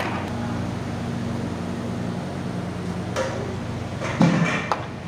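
Steady low mechanical hum of kitchen equipment, with a short loud knock about four seconds in as masala is ladled out of the pan.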